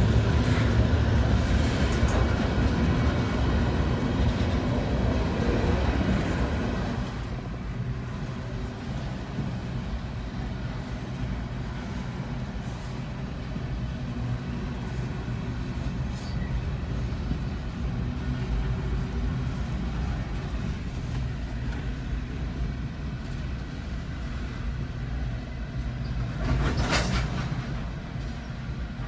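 Freight train of coal hopper cars rolling past: a steady rumble and clatter of wheels on rail, loud close up for the first seven seconds or so, then quieter and muffled as heard from inside a car's cabin. There is a brief loud whoosh about 27 seconds in.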